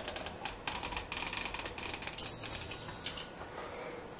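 Knife blade cutting along a raw herring's backbone on a wooden board, giving a quick run of crackling clicks that eases off about three seconds in. A high steady beep sounds for about a second midway.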